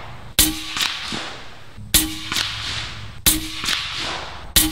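Bintac MCAR .457 big-bore air rifle firing slugs: four sharp reports about a second and a half apart, each followed a split second later by a fainter strike.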